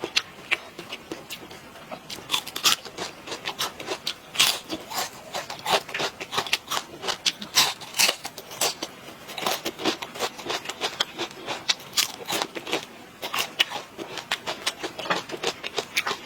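Close-miked chewing and mouth sounds from a person eating: irregular wet smacks and clicks, several a second.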